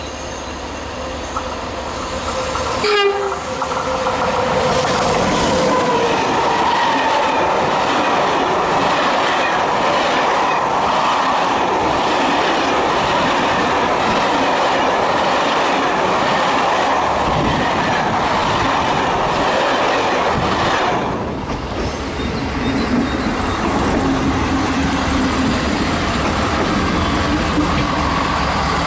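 X2200-series diesel railcar running on the line, a steady loud train noise. A single short sharp sound comes about three seconds in, and the noise dips briefly about three-quarters of the way through.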